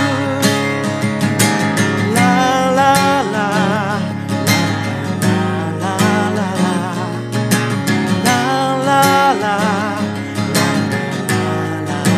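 Acoustic guitar strummed steadily while a man sings two long held notes with vibrato.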